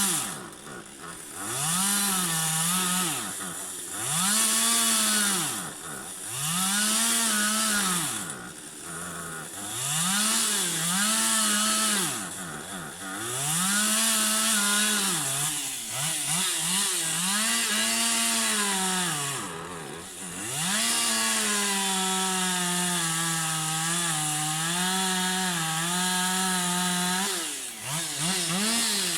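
Chainsaw engine revving up and down about every two seconds, then held at a fairly steady high speed through a cut for several seconds. Near the end the engine speed drops and picks up again.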